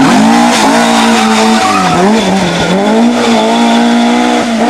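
Ford Escort MK II rally car's engine running loud at high revs. Around two seconds in the revs dip and climb back a couple of times as the throttle is lifted and reapplied, then hold steady and high.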